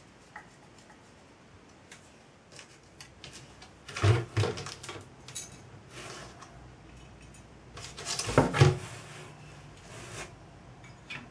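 Small painted metal parts of a model traction engine being handled and fitted, with light clinks and scraping. Two louder clatters come about four seconds in and again about eight and a half seconds in.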